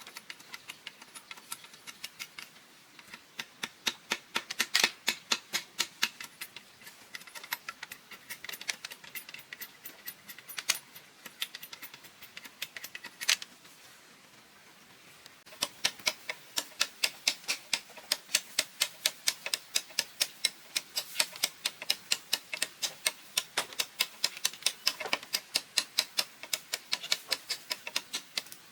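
Rapid, even sharp knocks, about four or five a second, in two long runs with a pause of about two seconds near the middle.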